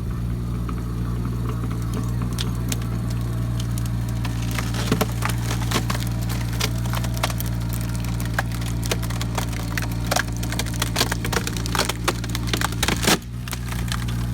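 Takeuchi TB219 mini excavator's diesel engine running steadily while the hydraulic auger-driven cone splitter screws into a log, the wood cracking and splintering with many sharp snaps that come thicker and faster as the log starts to split.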